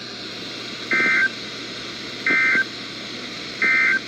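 Emergency Alert System End of Message code sent three times over weather radio: three short two-tone digital data bursts, about a third of a second each and a little over a second apart, marking the end of the required weekly test. A steady static hiss of radio reception runs beneath them.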